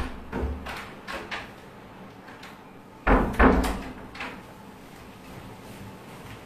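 Knocks and thumps of things being handled or moved: a sharp knock at the start, a few light clicks, then two louder thumps about three seconds in.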